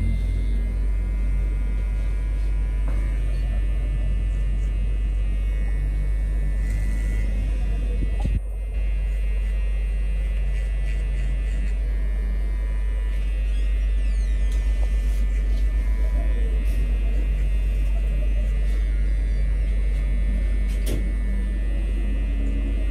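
JRL cordless hair clipper running with a steady motor hum as it cuts hair over a comb.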